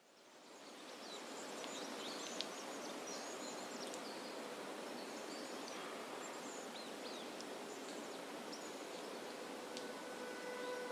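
Recorded forest ambience fading in: a steady rustling hiss with scattered short bird chirps and one sharp tick about two and a half seconds in. Near the end, sustained drone notes of ambient music begin.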